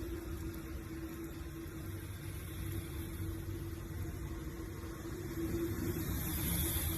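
Car cabin noise while driving: a steady low engine and road hum with a steady drone, under an even hiss that swells louder near the end.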